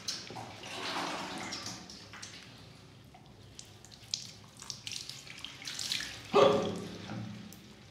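Water splashing in a washbasin as a wet cat is bathed, with water poured over her from a plastic scoop and scattered splashes and drips. About six seconds in comes a short, loud cry, the loudest sound.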